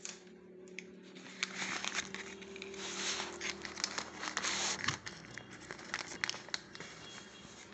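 Plastic packet of cocoa powder crinkling and rustling as it is handled and opened: a long burst of crinkling for a few seconds, then scattered sharp crackles near the end.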